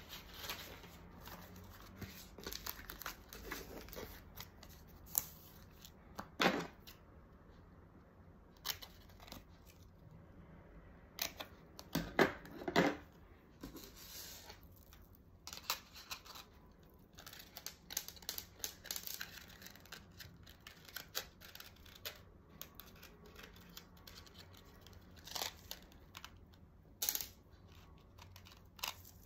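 Hands handling paper cards and clear plastic packing bags: irregular rustling, crinkling and light taps. Louder handling noises come about six seconds in, around twelve to thirteen seconds, and near the end.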